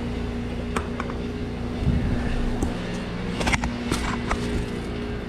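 Outdoor central air-conditioning condenser running: a steady electrical hum from the compressor with fan noise under it. A few short clicks or knocks sound about a second in and again past the middle.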